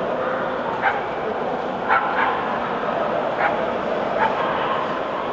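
A small dog yapping: about five short, sharp yaps spread over a few seconds, over the steady hubbub of a large, crowded hall.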